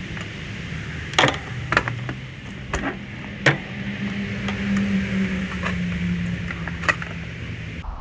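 About five sharp clicks and knocks of hands and tools working on a metal electrical panel, over a steady low hum and hiss. The hum and hiss cut off suddenly just before the end.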